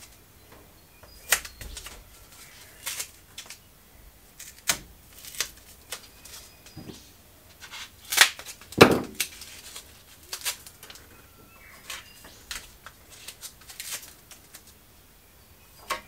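Scattered small clicks, taps and rustles of hands fitting small adhesive spacers onto the ridges of a bus's bare steel wall panel. Two louder knocks come about eight and nine seconds in.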